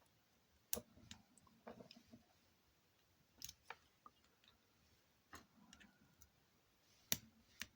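Faint, scattered metallic clicks and ticks of a lock pick working inside a cheap lock, about eight irregular clicks with near silence between them.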